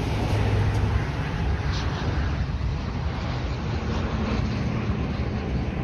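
Jet aircraft engines running as a plane moves along the runway: a steady, even roar without breaks.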